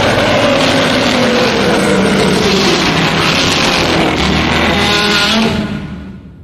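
A Godzilla film sound effect: a long, harsh, noisy blast with a lower tone sliding down inside it. It fades out near the end.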